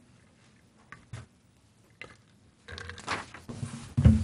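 Paper handling at a desk microphone: a few faint clicks, then pages rustling and turning more loudly in the second half, with a heavy bump against the desk near the end.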